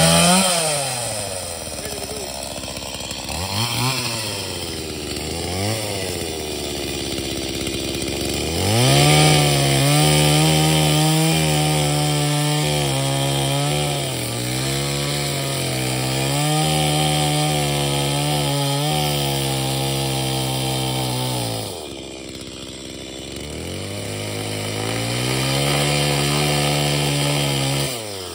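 Stihl MS 170 two-stroke chainsaw, just started cold on half choke, revved once, then given two short blips of throttle. From about nine seconds in it runs at full throttle cutting through a fallen trunk for about twelve seconds, drops back, and cuts again near the end.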